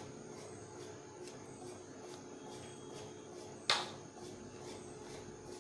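Quiet, steady background hum with a single short, sharp tap about two-thirds of the way through.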